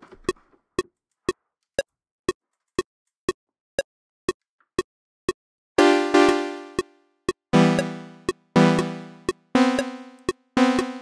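Metronome clicking steadily twice a second at 120 BPM. From about six seconds in, a DRC software synthesizer driven over MIDI plays a string of bright notes, each starting sharply and fading away.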